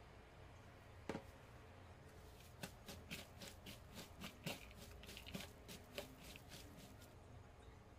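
A hand squeezing and mixing raw minced beef with diced onion, tomato and peppers in a wooden bowl: a faint run of irregular wet squishes and clicks, after a single knock about a second in.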